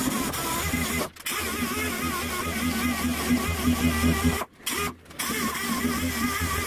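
Angle grinder with a blue abrasive cleaning disc running against a bare sheet-steel car bonnet. Its motor whine wavers in pitch as the disc is pressed and moved over the metal, and the sound breaks off briefly about a second in and again around the middle.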